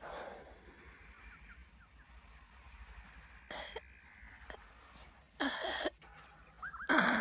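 A man's short throaty grunts and coughs as he strains on a toilet, then a long, wavering groan that starts near the end and is the loudest sound.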